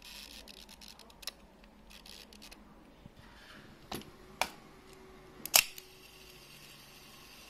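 Exakta Varex IIa 35 mm SLR shutter mechanism: a few light clicks, then a sharp click about five and a half seconds in as the cloth focal-plane shutter is released and stays open. A faint steady whir follows, the slow-speed clockwork timing a long exposure.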